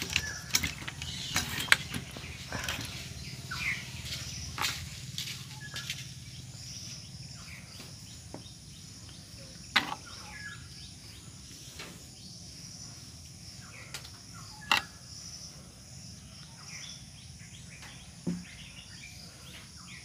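Steady high chirring of insects in the background, with a few sharp clicks and knocks from the circuit board being handled.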